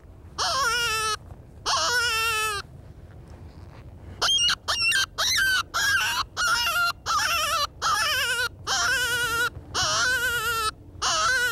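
Hand-held predator call giving a series of wailing, wavering cries, each under a second, like an animal in distress, to lure coyotes. About four seconds in there is a quick run of high squeals.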